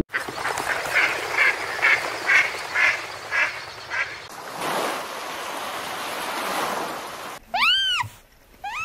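An animal calling over and over, about two short calls a second, over a steady hiss. Near the end come two loud, drawn-out calls that rise and fall in pitch.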